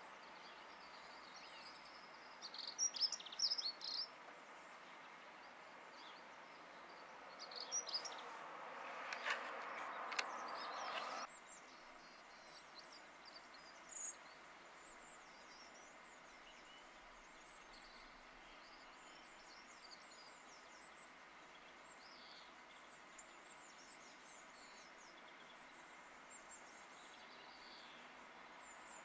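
Small British garden birds chirping and calling in short bursts: a flurry about three seconds in, another around eight seconds, a louder single call near fourteen seconds, then faint scattered chirps over a steady background hiss. A louder stretch of rushing noise with a few clicks runs for about three seconds before cutting off suddenly.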